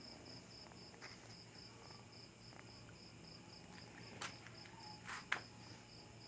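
A cricket chirping steadily, a high pulse repeating about three times a second. A few short clicks or scuffs in the second half, the sharpest near the end.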